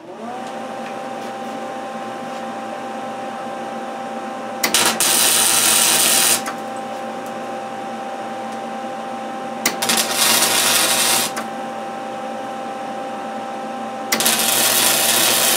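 MIG welder switched on and humming steadily, with three loud tack welds of about a second and a half each, about five, ten and fourteen seconds in, tacking a steel washer onto a tube.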